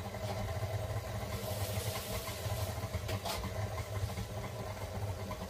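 KitchenAid tilt-head stand mixer running steadily, its dough hook kneading wholemeal bread dough.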